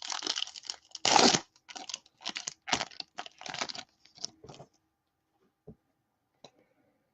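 Foil wrapper of a Topps Chrome baseball card pack being torn open and crinkled: a run of short tearing and rustling noises over the first four and a half seconds, then two faint clicks.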